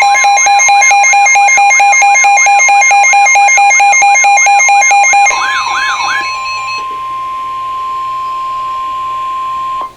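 Electronic emergency alert tones layered together: a tone pulsing on and off about four times a second, a repeating sweeping warble and a steady tone. About five seconds in, all but the steady single tone stop. That tone, the NOAA Weather Radio warning alarm tone, holds for about four seconds and cuts off suddenly just before the end.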